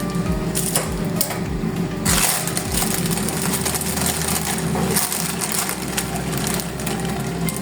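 Crinkling, rustling and sharp clicks of kale leaves being handled, over a steady low hum.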